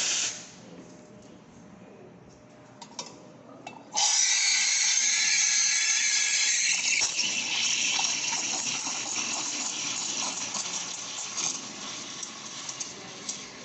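Espresso machine steam wand frothing milk in a stainless steel pitcher. After a few small handling clicks, the steam opens about four seconds in with a sudden loud hiss. The hiss eases and softens after a few more seconds, with the wand tip lower in the milk.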